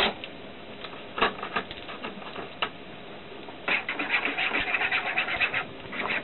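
A utensil tapping and scraping in a cup as powdered whole egg is stirred into water: a few separate clicks, then about two seconds of quick, steady stirring starting near the middle.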